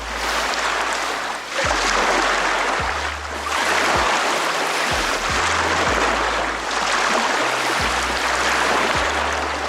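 Rushing river water, a loud steady rush that swells and eases every second or two, over a low music bass line that changes note about once a second.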